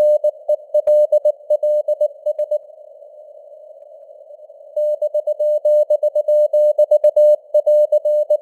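Morse code at 19 words per minute: a single-pitched CW tone keyed on and off in dots and dashes over a narrow band of simulated radio hiss. The keying stops for about two seconds in the middle, leaving only the hiss, then starts again.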